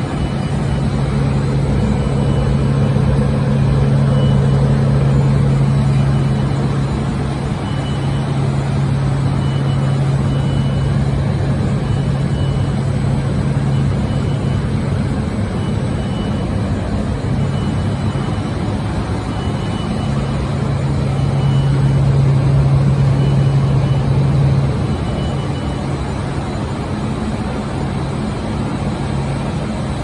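Industrial continuous textile washing machine running: a steady low motor hum over the hiss of water sprays inside the machine, swelling louder twice as it goes.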